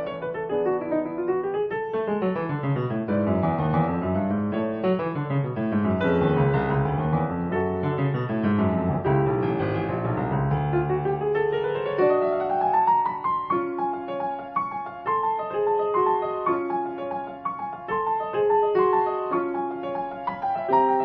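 Solo piano music: rolling arpeggios sweep up and down, a rising run climbs about twelve seconds in, and after that a steadier pattern of repeated notes and chords follows.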